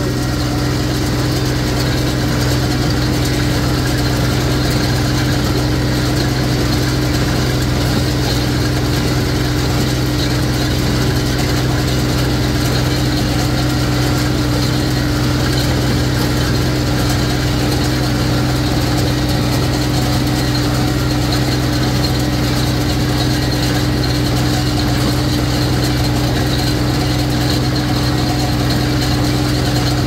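Tractor engine running steadily under PTO load, driving a New Holland small square baler with a bale thrower. A loud, even hum that holds the same pitch throughout.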